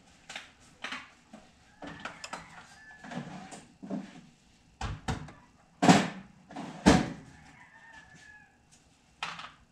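Irregular knocks and clunks of objects being handled, the loudest three about a second apart in the middle, with scraping and rustling between them.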